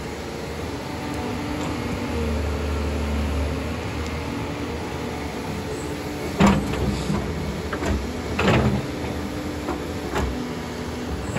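Diesel engine of a Doosan excavator running steadily. Sharp knocks sound over it, loudest about six and a half and eight and a half seconds in, with a few lighter ones later.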